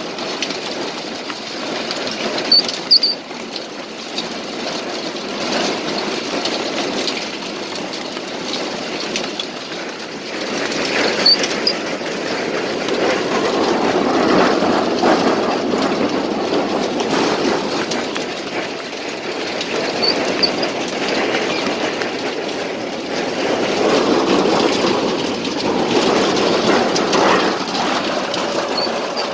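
Apple harvester's elevator conveyor running, dropping a stream of juice apples that tumble and thud onto a trailer heaped with apples, in a dense rattling clatter that swells and fades. A short high squeak comes about every nine seconds.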